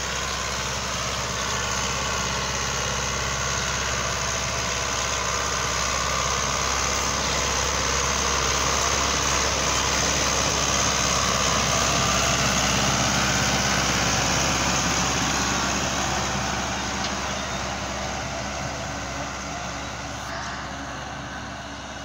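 Euro Ford 5880 diesel tractor engine working under load as it pulls a fully opened disc harrow through tilled soil. It grows louder as the tractor passes close about halfway through, then fades as it moves away.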